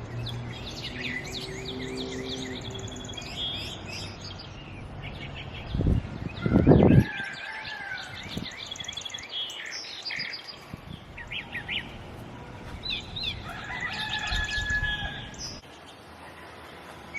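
Songbirds chirping and calling over and over, with a low steady hum for the first few seconds and one loud, low rumble lasting about a second, six to seven seconds in.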